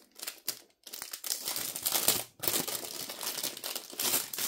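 Clear plastic sleeve crinkling and rustling as it is handled and pulled off a rolled diamond-painting canvas, in a run of crackly bursts with a short lull about two seconds in.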